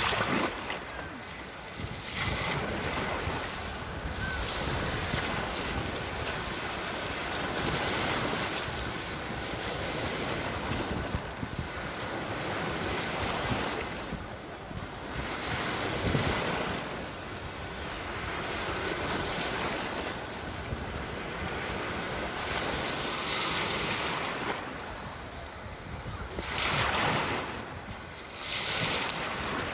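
Sea waves breaking and washing on a shore, the surf swelling and ebbing every few seconds, with some wind noise on the microphone.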